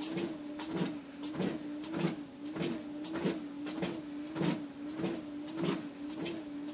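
Treadmill running under a walker: a steady motor hum whose pitch wavers with each step, and footsteps landing on the belt about one and a half times a second.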